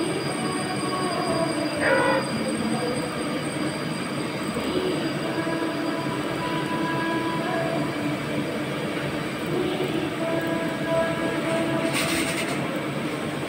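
CNC lathe turning a ring under coolant spray: steady machining noise laced with short, shifting whining tones, one of which glides down about two seconds in. A brief hiss comes near the end.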